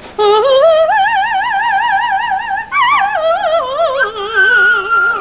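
A woman singing opera-style, with long held notes and wide vibrato that climb, hold, then fall, while a small dog howls along. About four seconds in, a higher steady howl sits over her low held note.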